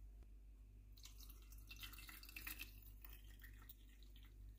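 Water poured from a kettle into a glass mug, a thin splashing stream that starts about a second in and stops near the end.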